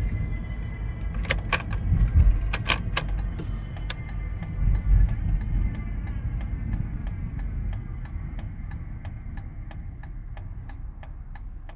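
2005 Volvo V70's drivetrain making the noise its owner traces to the gearbox: a whine slowly falling in pitch over a low rumble. A few sharp clicks come about two seconds in, and a regular ticking of about two to three a second starts midway.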